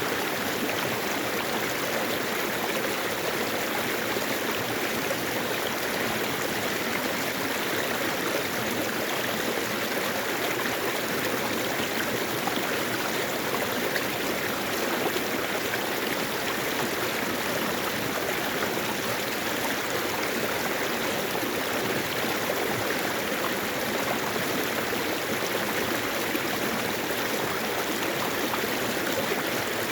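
Mountain valley stream flowing steadily.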